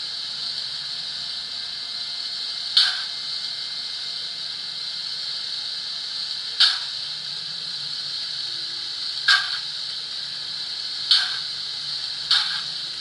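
Uhlenbrock Intellisound DCC sound decoder playing a steam locomotive through the small loudspeaker in the model's tender: a steady steam hiss with single exhaust chuffs that come closer together as the locomotive picks up speed.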